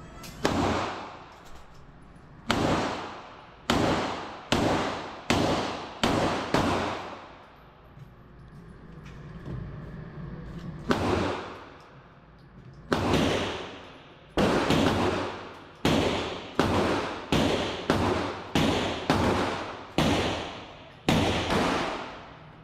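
Handgun shots in an indoor shooting range, about twenty in all, each sharp report followed by a short echo off the range's walls and ceiling. The shots come at irregular intervals, with a pause of about four seconds partway through, then a quicker run of shots nearer the end.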